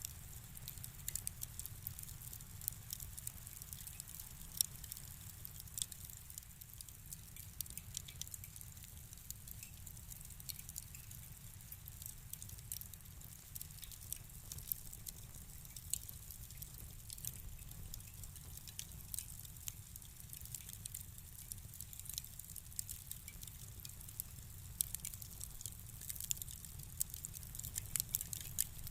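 Fireplace fire crackling: irregular sharp pops and snaps over a low, steady rumble.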